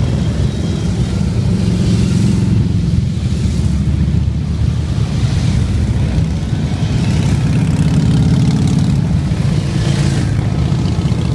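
A steady procession of Harley-Davidson V-twin touring motorcycles riding past one after another at parade pace: a continuous low engine rumble that swells as each bike goes by.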